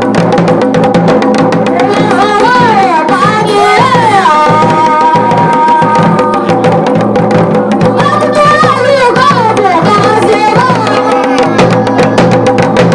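Garhwali dhol beaten in fast, dense strokes over a steady drone. A melody that bends in pitch and holds long notes comes in about two seconds in and again about eight seconds in.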